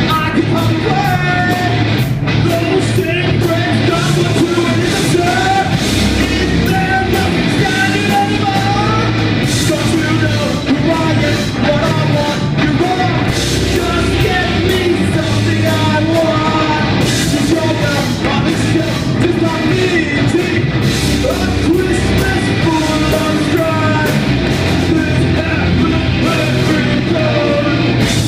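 Live rock band playing loudly, with a vocalist singing over the band.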